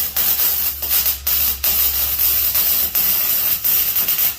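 Electric arc welding on thin steel: the arc's steady crackling hiss, broken by a few short pauses as the arc stops and restarts.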